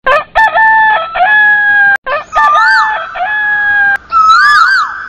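A rooster crowing twice, each crow about two seconds long. A second, warbling call rises and falls over the second crow and goes on near the end.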